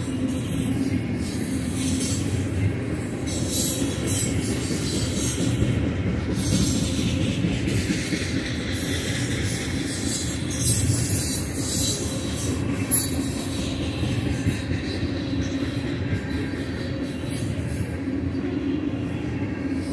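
Loaded covered hopper cars of a freight train rolling past: a steady rumble of wheels on rail, with high-pitched wheel squeal and hiss coming and going, and one sharp clank about 13 seconds in.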